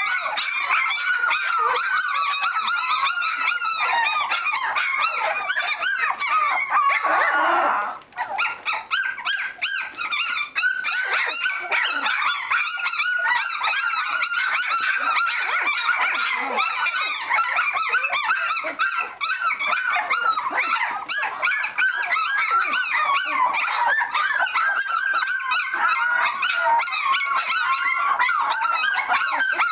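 A litter of young Standard Poodle puppies whining and yelping together, many high calls overlapping almost without a break. There is a brief lull about eight seconds in.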